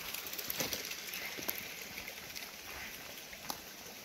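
Water splashing into a fish pond from a hose or inflow line: a steady hiss with small crackling drips, growing a little fainter.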